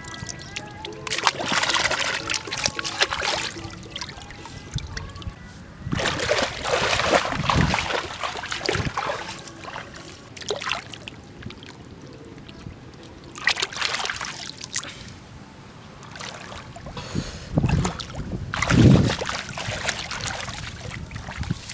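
Shallow pond water splashing and sloshing by hand in four bursts as chicken innards are rinsed in it.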